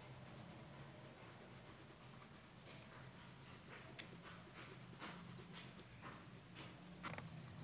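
Faint scratching of a coloured pencil on paper in short strokes as a colouring-book picture is shaded in.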